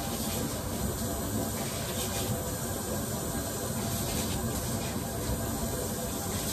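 Tap water running steadily into a sink while fish fillets are rinsed by hand under it.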